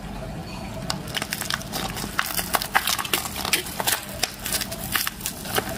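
A small parcel's paper and tape wrapping being torn and crinkled open by hand: a run of irregular crackles and rustles.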